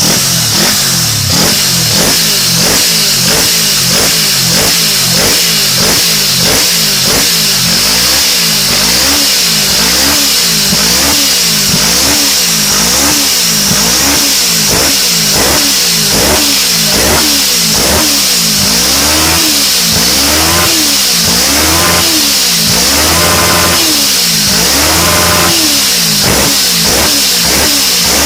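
Auto race motorcycle engine fitted with a silencer muffler, revved up and down over and over in a steady rhythm. The revs start at about one a second and become longer, higher swells in the second half.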